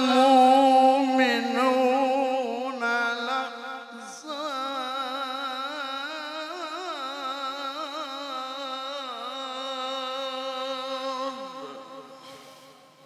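A man's voice in melismatic Quran recitation (tilawah), holding long notes with heavy wavering ornaments. One phrase breaks off about four seconds in, a new one begins, and it fades out near the end.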